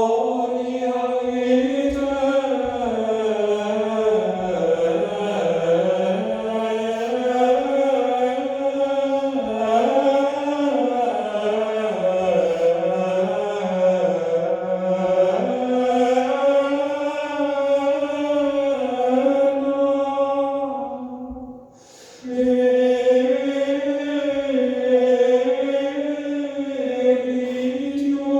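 A choir singing a slow Requiem in sustained, overlapping chords. The singing breaks off briefly about three-quarters of the way through, then resumes.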